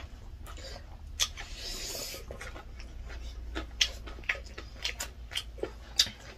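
Close-up eating sounds of people eating rice and spicy chicken by hand: many short wet clicks and lip smacks of chewing, with a brief breathy hiss about one and a half seconds in.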